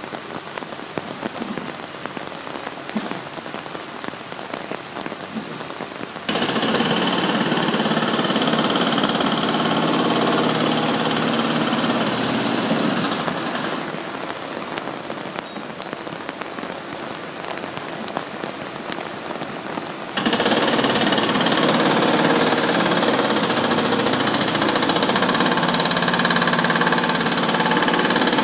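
Long-reach demolition excavator's diesel engine, stepping up to a louder, steady run about six seconds in, dropping back at about fourteen seconds and rising again at about twenty, over a steady hiss of falling water.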